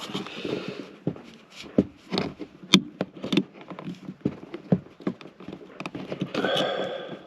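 Irregular clicks, knocks and scrapes of a car's old speaker being worked out of its mounting by hand with tools, with one sharp click about two and a half seconds in and a longer scraping sound near the end.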